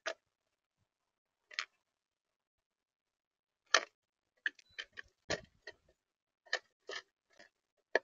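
About a dozen sharp, irregular taps and clicks on the bird-feeder camera's housing, the loudest a little before the middle, with a quick cluster in the second half: a bird pecking and hopping at the feeder.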